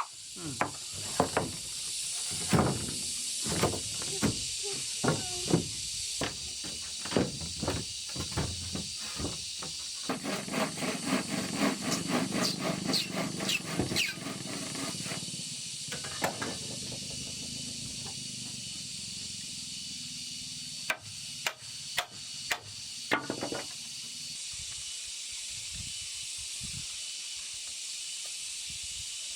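Irregular knocks and thuds, dense for the first ten seconds or so and a few more about two thirds of the way in, over a steady high hiss.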